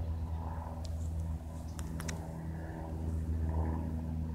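Cessna light aircraft's piston engine and propeller droning overhead, a steady low hum, with a few short high clicks about two seconds in.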